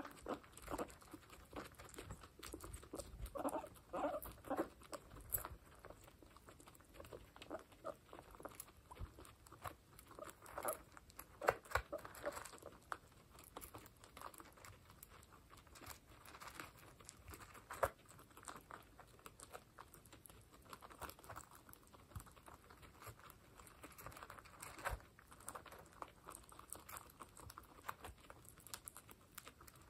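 Guinea pigs chewing dry pellets: faint, rapid crunching and clicking as they eat from a bowl, with a few louder sharp clicks along the way.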